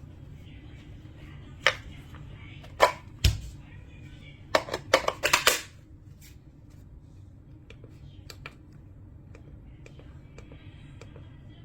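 Hard objects being handled: a few separate sharp clicks and knocks, then a quick cluster of clacks about five seconds in, followed by faint small ticks over a low steady hum.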